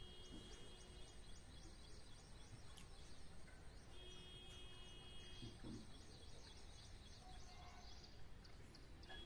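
Faint outdoor background noise with rapid, high-pitched chirping repeated several times a second. Soft held musical notes come in near the start and again about four seconds in.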